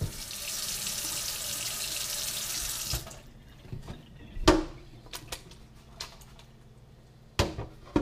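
Kitchen tap running into a stainless steel sink, shut off about three seconds in. Then a few separate knocks, and a pot clattering near the end.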